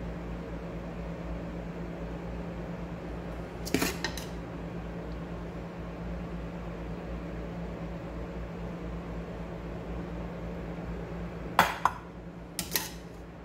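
A metal bowl clinking against a glass baking dish as cooked rice is tipped and scraped into it: one sharp clink about four seconds in, then a quick group of three near the end. A steady low hum runs underneath.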